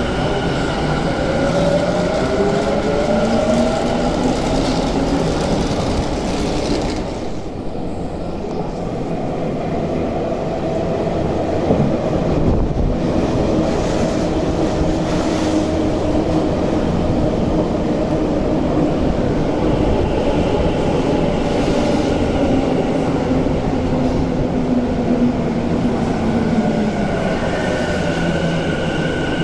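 Tokyu 5050-4000 series electric train with a Hitachi IGBT VVVF inverter. For the first several seconds the inverter whine rises in pitch as the train accelerates out; then, after a break, a train's inverter tones hold steady and fall in pitch over the last several seconds as it brakes. Wheel and rail rumble runs underneath throughout.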